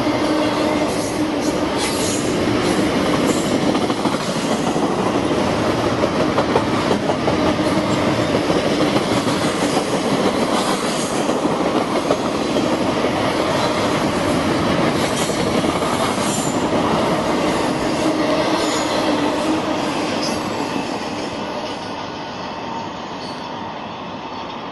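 Double-stack intermodal container train rolling past close by: the steady rumble and clatter of freight car wheels on the rails, with scattered sharp clicks. The sound eases off over the last few seconds as the train moves away.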